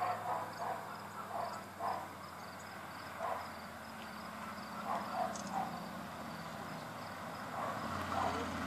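Faint low drone of the approaching Ford Ranchero's cammed Buick V8, heard far off, growing a little louder near the end. Insects chirp over it.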